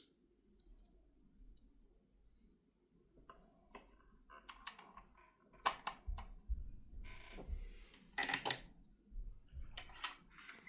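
Scattered clicks, taps and short rustles of hands threading a PFAFF 351 sewing machine, thread drawn through its guides and metal parts clicking, busier in the second half.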